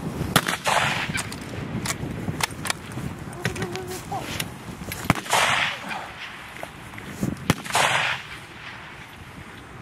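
Rifle shots: a string of sharp cracks, three of them louder and each followed by a brief rushing echo, about half a second in, about five seconds in and about seven and a half seconds in.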